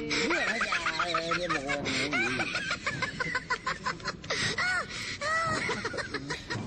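People laughing, in quick pitched bursts that carry on without a break.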